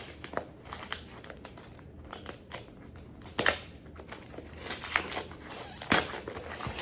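Mail packaging crinkling and crackling as it is worked open by hand without a knife, with a few sharper snaps around the middle and near the end.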